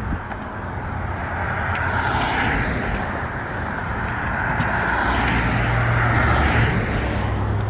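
Road traffic passing close by on a bridge: tyre roar and engine hum that swell as vehicles go by, loudest about two seconds in and again near the end.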